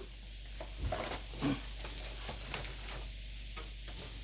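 A few brief soft knocks and rustles from chair parts and packaging being handled, over a steady low hum.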